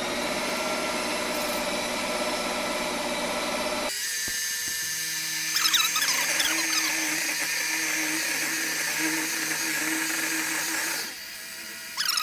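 Ninja Creami ice cream maker running its Ice Cream program on a pint of frozen ice cream base. It gives a steady high-pitched motor whine that changes note about four seconds in. Squeaky chirps join in soon after, and it gets quieter near the end.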